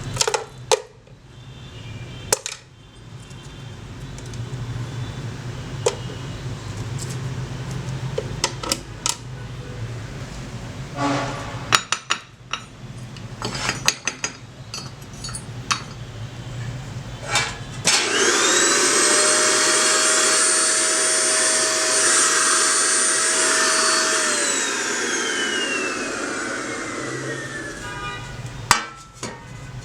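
Clicks and knocks of metal being handled over a low hum. Then a small power tool's motor starts, runs at a steady high speed with a whine for about six seconds, and is switched off, its whine falling in pitch as it winds down.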